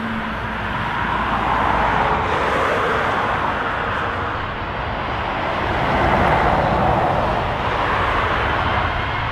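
Jet engines of an Airbus A330-200 airliner running as it moves along the runway, cleared for takeoff: a steady rushing noise that swells slightly about six seconds in.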